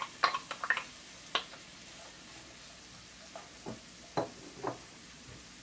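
Diced onion knocked out of a plastic cup into a skillet of hot olive oil, with a quick run of sharp taps of the cup on the pan in the first second and a half. A wooden spoon then stirs the onions, giving a few softer knocks against the pan, over a faint steady sizzle.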